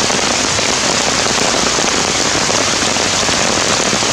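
Heavy rain falling steadily: an even, loud hiss of many drops striking close by.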